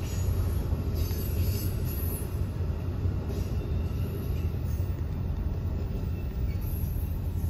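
Amtrak Superliner passenger cars rolling past, a steady low rumble of wheels on the rails.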